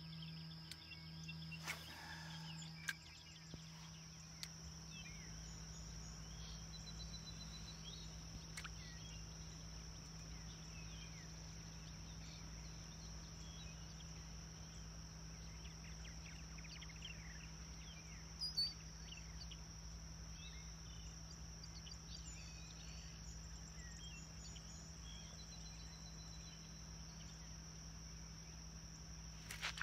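Faint lakeside ambience: a steady high insect drone with scattered bird chirps, and a couple of brief clicks.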